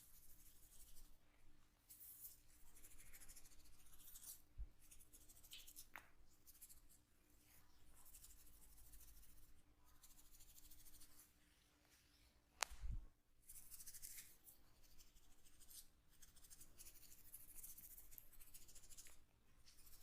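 Hands rubbing and scratching through oiled hair and scalp in a head massage: a soft, scratchy rustling in repeated strokes of a second or two, with one sharp click a little past the middle.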